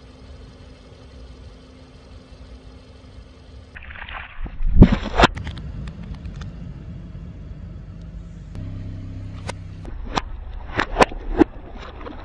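Water balloons being handled: sharp wet rubber snaps and squeaks, the loudest pair about five seconds in and a run of them near the end. A car engine idles under them at a low steady level.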